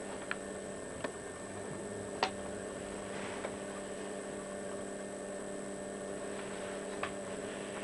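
Steady electrical hum with a few light clicks and knocks, the sharpest about two seconds in, from a plastic tub and a cloth being handled.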